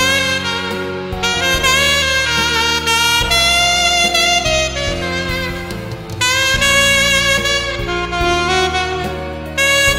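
Alto saxophone with a handmade wooden mouthpiece playing a slow ballad melody in long phrases over a backing track, with short breaths between phrases about six seconds in and near the end.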